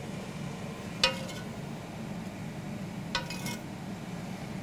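Metal spoon working in a cast iron skillet while pan juices are spooned out, with one sharp clink about a second in and a fainter scrape a little after three seconds, over a low steady hum.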